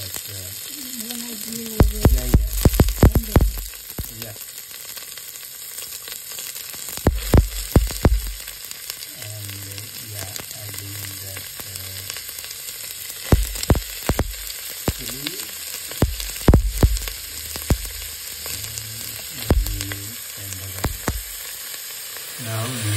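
Chopped onion sizzling in hot oil in a stainless steel pressure cooker pot, a steady high hiss. Sharp knocks and clinks against the metal pot come in clusters every few seconds as more onion and chilies go in.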